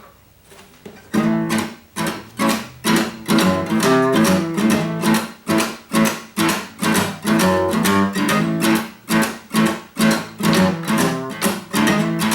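Acoustic guitar strummed in a steady blues rhythm: the instrumental intro of the song, starting about a second in after a short pause.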